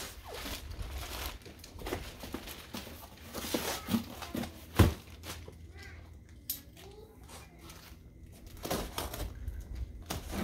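Plastic packaging crinkling and cardboard rustling as parts are pulled from a shipping box, with one sharp knock about five seconds in.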